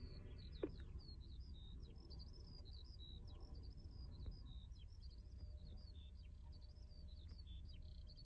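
Faint, rapid high chirps and twitters of small birds going on without a break, over a low steady rumble.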